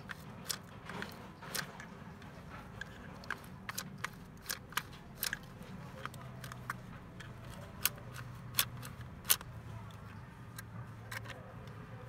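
Lever handles of a swing glass door lock set being pressed and released by hand, its latch mechanism giving a string of irregular sharp clicks and clacks. The loudest three come about two-thirds of the way through.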